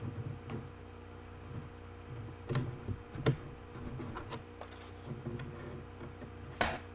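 Scattered light clicks and taps of a plastic CD case and its paper booklet being handled as a stuck booklet is worked free, with a louder click near the end, over a faint steady hum.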